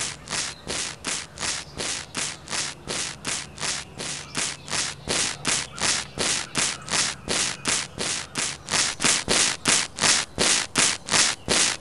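Scissors snipping over and over, about three swishing cuts a second in a steady rhythm: the running sound effect for a cartoon bike built from scissors.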